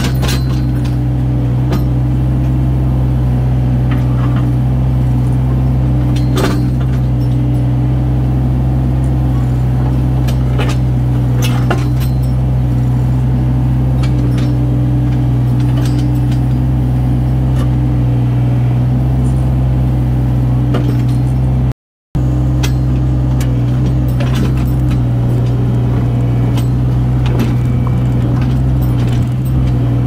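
Diesel engine of a compact earthmoving machine running steadily at a constant speed, with scattered sharp knocks and clanks over it. The sound drops out for a split second about two-thirds of the way through.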